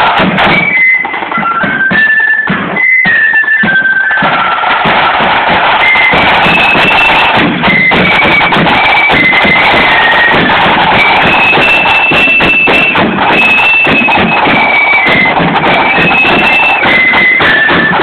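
Marching flute band playing: a high flute melody over rapid snare drum strokes. The playing grows fuller and denser about four seconds in.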